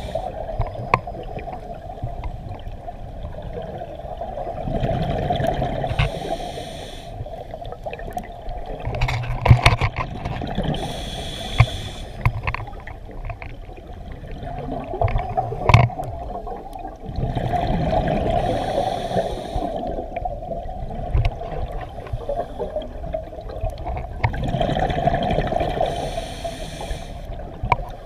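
Scuba regulator breathing heard underwater through a GoPro housing: about four bursts of exhaled bubbles, roughly every six seconds, over a steady muffled water rumble with scattered clicks and knocks.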